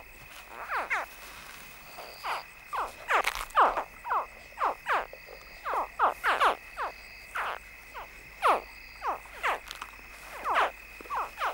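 A chorus of Nile crocodile hatchlings chirping from inside their eggs in the buried nest. Several young call at once, about two short calls a second, each dropping sharply in pitch. These calls are the hatchlings' signal that draws the mother to dig them out. A faint steady high whine runs behind them.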